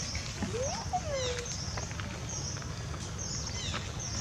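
A macaque gives one short rising-then-falling call about half a second in, over a bird's sharp high chirps repeating every half-second or so and a steady low background rumble.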